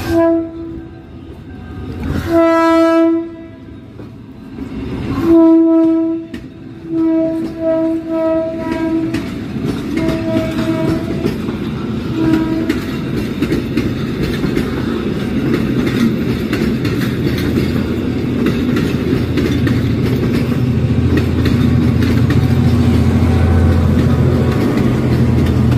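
Passenger train horn sounding repeatedly as the train pulls out: a few blasts of about a second, then a run of short toots. After that the coaches roll past with wheel clatter over the rail joints, and a diesel locomotive's low engine rumble grows louder near the end as it passes.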